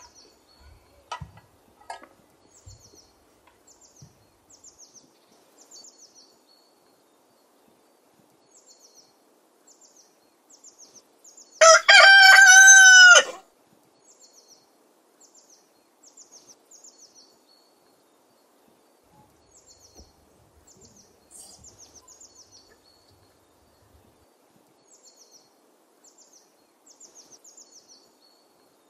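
A rooster crows once about halfway through, a single loud call of under two seconds. Throughout, a small bird chirps high and repeatedly, about once a second.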